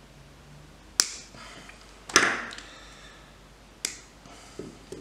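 Small side cutters snipping a thin motor wire: sharp snaps about one, two and four seconds in, the second the loudest.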